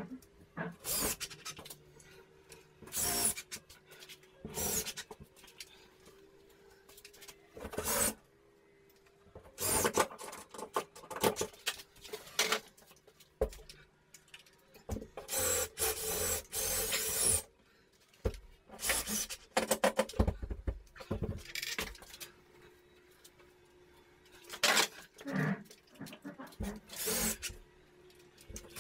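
Irregular scraping and rubbing strokes of hand work on drywall, each from a fraction of a second to about two seconds long, with a faint steady hum underneath.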